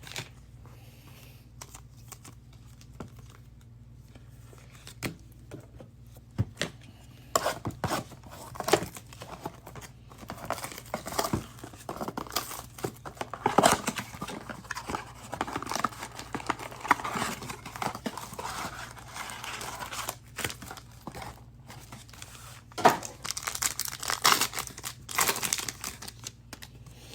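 Plastic trading-card pack wrappers being torn open and crinkled as football card packs are opened and handled. A few faint clicks at first, then from about seven seconds in a long run of crinkling and tearing with sharp snaps.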